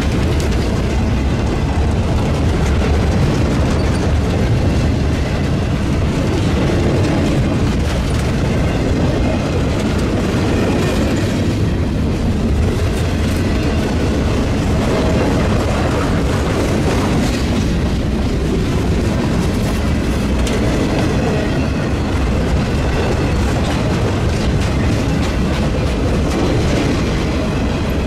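Freight cars of a passing freight train rolling steadily by: steel wheels on rail give a loud, even rumble with a running clickety-clack.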